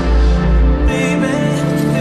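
Background music with sustained pitched tones; a deep bass note drops out about a second in.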